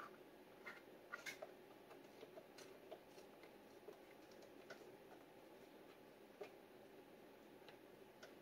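Near silence with scattered faint light clicks and ticks, several close together about a second in: small parts and wires being handled while a speaker's tweeter is reconnected.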